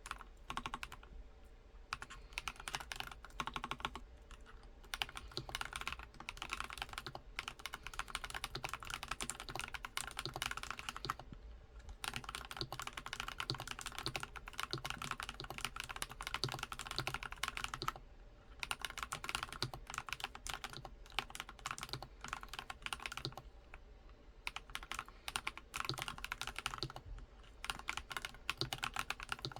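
NuPhy Halo65 mechanical keyboard typed on quickly, its stock Night Breeze linear switches and stock keycaps giving a rapid run of keystroke clacks. The typing stops briefly twice, about eleven seconds in and again near the eighteen-second mark.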